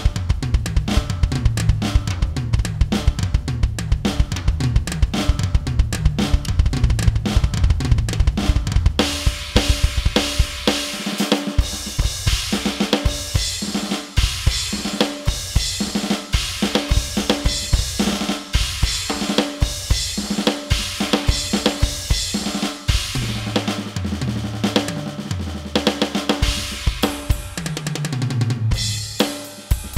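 Drum solo on an electronic drum kit, heard through its sound module: fast bass drum and tom strokes. About nine seconds in, cymbals and snare come in and keep going over tom runs, with a brief drop near the end.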